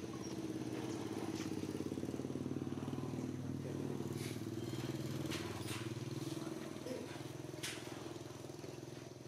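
An engine running steadily with a fast, even pulse. It swells at the start and fades away over the last few seconds.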